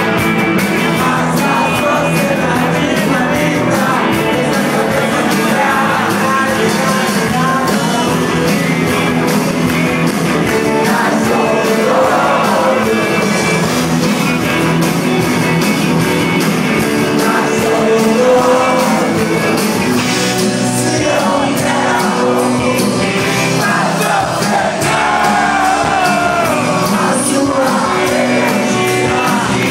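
Live rock band playing at full volume: electric guitars and drums with a lead vocal.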